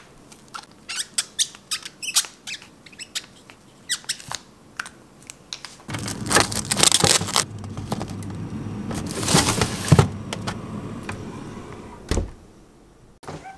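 Cling-film-wrapped plastic meat trays clicking and crinkling as they are handled and stacked, then scraping as they slide into a freezer drawer over a steady hum. The freezer door shuts with a dull thud near the end.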